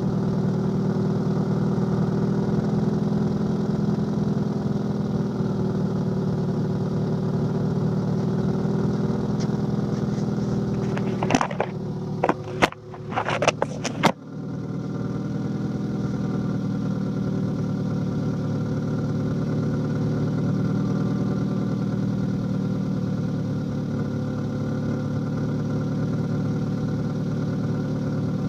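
2002 Subaru Legacy GT's 2.5-litre flat-four idling steadily with an exhaust leak. About halfway through, a short cluster of sharp clicks and knocks breaks in, then the even idle carries on.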